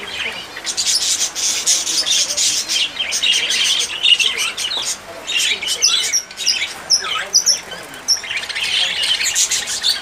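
Many small caged birds chirping and calling at once, a dense overlapping chatter of short high notes.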